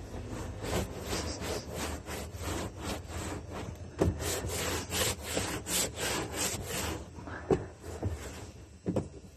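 Cloth rag rubbing back and forth across a plastic oil containment unit, wiping off grease loosened by sprayed degreaser, in quick repeated strokes of about three a second. The rubbing eases off after about seven seconds, and a couple of light knocks follow near the end.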